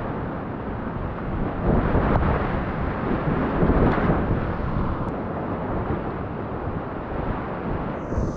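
Whitewater rapids rushing loudly around a kayak, with water splashing over the boat, paddle and camera. The rushing swells louder about two seconds in and again around four seconds.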